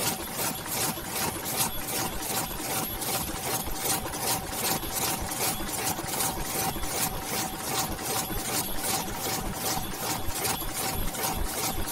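DEBAO 138S high-speed paper cup machine running, its forming mechanism clattering in an even rhythm of about two to three strokes a second over a steady hum.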